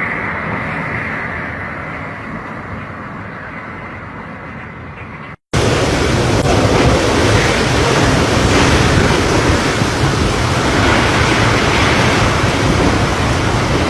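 Strong storm wind rushing and buffeting the microphone as a dense, steady noise. About five seconds in it cuts abruptly from a quieter, fading rush to a louder one that swells in gusts.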